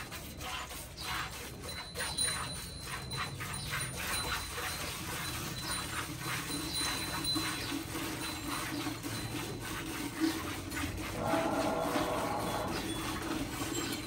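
Hand-milking of a cow: streams of milk squirting from the teats into a steel bucket in a quick run of strokes. About eleven seconds in, an animal's whining call sounds for a couple of seconds.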